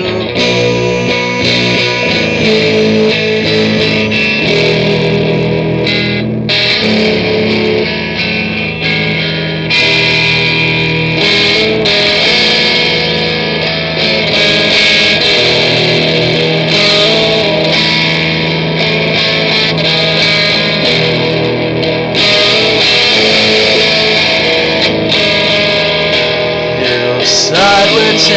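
Music led by guitar: a song in an instrumental stretch, with a steady beat and layered guitars.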